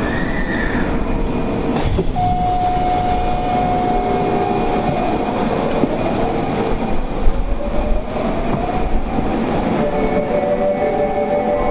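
Running sound inside a Kita-Osaka Kyuko 9000-series subway car in a tunnel: wheel and rail rumble with loud air-conditioning hiss, and the whine of its Toshiba IGBT-VVVF inverter and permanent-magnet synchronous motors. The whine holds a steady note, then rises in pitch through the middle, and near the end several notes sound together.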